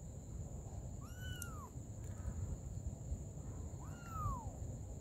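A young kitten mewing twice, about three seconds apart; each mew is short and high and rises then falls in pitch. A steady low rumble runs underneath.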